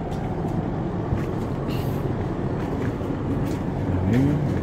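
Closed-house poultry shed's large exhaust blowers running, a steady low rumble and hum. A short rising sound comes near the end.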